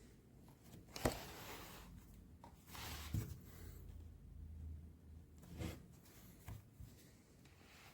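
Faint, scattered handling noises in a small room: a light click about a second in, then a few brief rustles and soft knocks.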